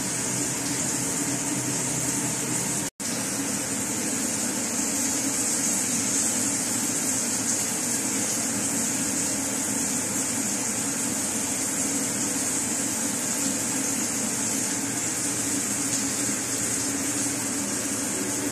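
Steady rushing noise with a high hiss and a low hum, broken by a brief dropout about three seconds in.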